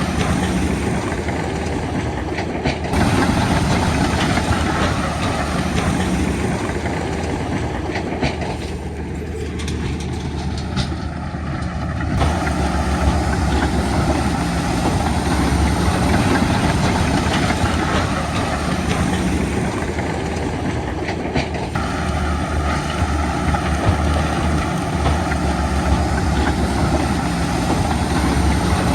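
Heavy diesel earthmoving machinery running steadily under work. The sound changes abruptly about 3, 12 and 22 seconds in.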